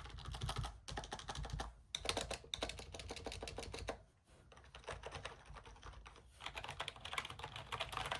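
Keys being pressed rapidly on a compact 60% keyboard: a fast clatter of key clicks in several runs, with short pauses between them.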